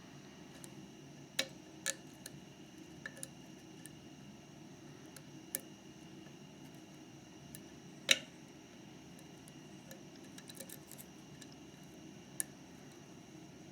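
Lock pick and tension wrench working inside a Mauer MLS euro cylinder: scattered small, sharp metallic clicks and light scrapes, the loudest about eight seconds in, over a steady faint hum.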